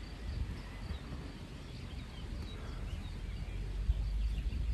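Outdoor riverside ambience: wind buffeting the microphone with a steady low rumble, and small birds chirping faintly now and then.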